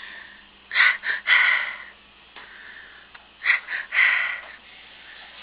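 Breathy huffs from a person, likely the baby: two quick bursts and then a longer one, heard twice.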